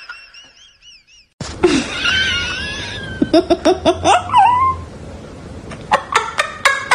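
A person laughing in short bursts, about four a second at the fastest, with a high wavering whine just before.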